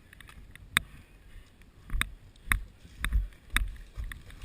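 Footsteps at a walking pace, about two a second from halfway through, each with a low thud and a sharp click or rattle of carried gear.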